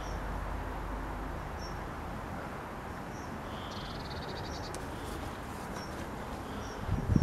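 Faint high chirps every second or so, with a short rapid trill about four seconds in, over a steady low rustling hiss. Near the end, a couple of heavy footsteps in grass.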